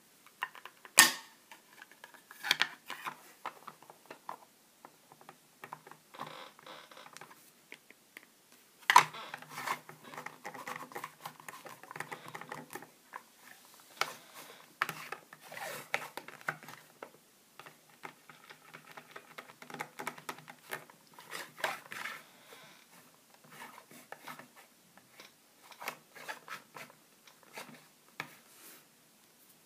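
Handling of a plastic figure and its stand: sharp plastic clicks and knocks, the loudest about a second in and again about nine seconds in, with scraping and rubbing as the figure is fitted onto its support rod and set down on a wooden table.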